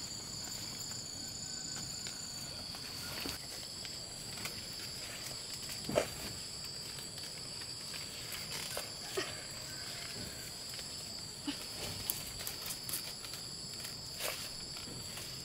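Steady high-pitched chorus of insects, with scattered rustles and knocks as a woven bamboo basket loaded with jackfruit is handled and lifted onto the back; the sharpest knock comes about six seconds in.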